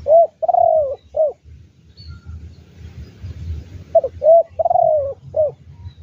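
Spotted dove cooing. Its four-note phrase comes twice, about four seconds apart.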